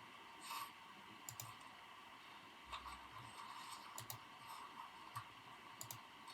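Computer keyboard being typed on slowly, with faint, irregularly spaced single keystroke clicks over a soft, steady background hiss.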